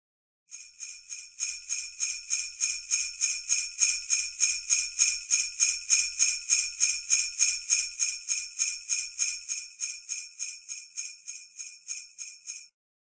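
Sleigh bells shaken in a steady rhythm, about three shakes a second. They swell up over the first few seconds, then fade away and stop shortly before the end.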